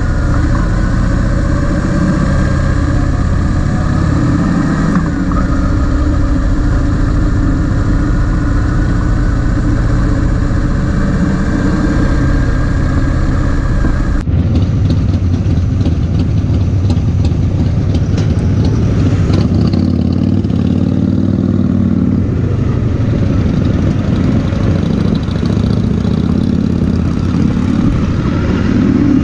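Kawasaki VN2000 motorcycle's big V-twin engine running steadily while riding. About halfway through the sound changes abruptly and the deep rumble thins out.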